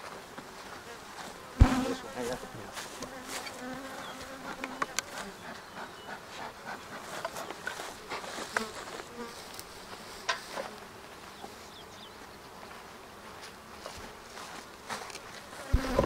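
Honey bees buzzing around opened beehives, a faint hum that comes and goes, with small clicks throughout. A sharp knock comes about a second and a half in and another near the end.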